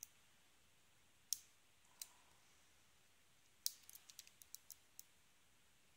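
Faint metallic clicks of a short hook pick working the pin stack inside a brass Commando Peacemaker 38B padlock during single pin picking. A few single clicks, then a quick run of about eight small clicks about four seconds in.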